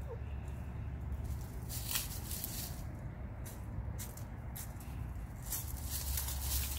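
Outdoor ambience of hens foraging: a steady low rumble with a few faint scratches and taps in dry leaf litter and at a water bowl.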